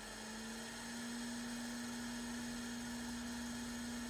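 A small motor humming steadily over a faint hiss, its pitch and level rising a little during the first second and then holding.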